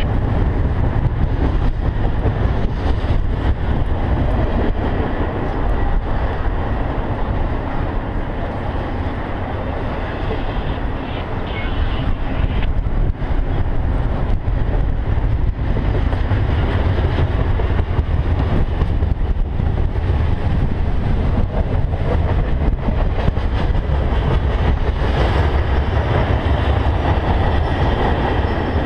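Double-stack intermodal freight cars rolling past: a steady rumble of steel wheels on rail, with scattered clicks.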